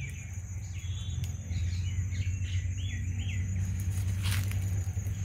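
Small birds chirping in short rising-and-falling notes over a steady high insect drone and a constant low rumble, with a brief rustle about four seconds in.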